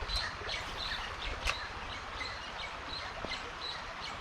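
Small birds chirping, with many short, high chirps repeating over a steady outdoor hiss. A single sharp click about a second and a half in.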